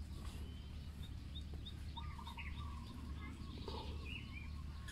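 Birds calling in the background: a quick run of short high chirps about a second in, then longer whistled calls, over a low steady hum.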